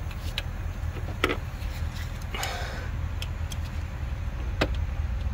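Scattered light clicks and taps of a screwdriver and gloved hands working a plastic fuel line on its metal hard line, with one brief scrape midway, over a steady low hum.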